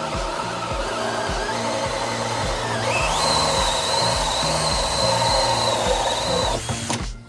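Power drill cutting a 2-inch hole through the wall of a drum, its whine rising in pitch about three seconds in and stopping abruptly near the end. Background music with a steady beat plays underneath.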